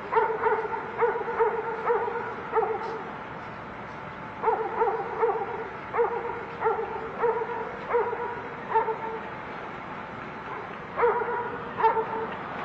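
A dog barking in three runs of quick, evenly spaced barks, about two a second, with pauses of a few seconds between the runs.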